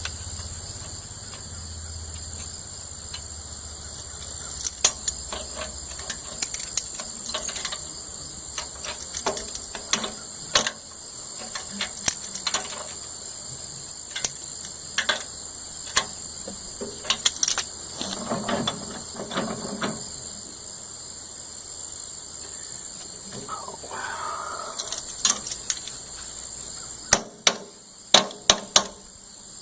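Irregular metallic clicks and clinks of hand tools worked on the tractor's lift-arm hardware, with a few sharper knocks near the end. Insects drone steadily in the background.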